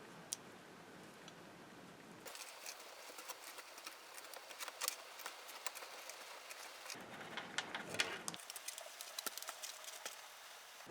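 Light, irregular clicks and taps of small metal parts and tools being handled on a workbench, with a soft rubbing sound in the first two seconds and again briefly about seven seconds in.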